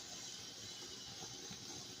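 Lit ground firework burning with a steady hiss, with no bangs or pops.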